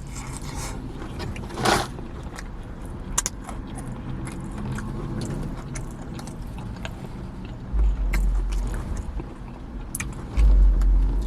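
Close-up chewing and crunching of crispy fried chicken, with scattered small clicks and rustles. Two stretches of low rumble, the loudest sounds here, come near the end.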